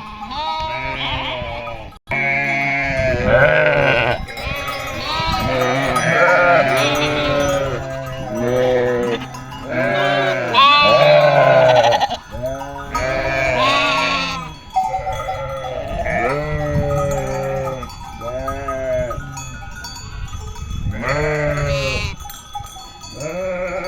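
A flock of sheep bleating over one another, many short wavering calls overlapping throughout, with metal bells clinking among them.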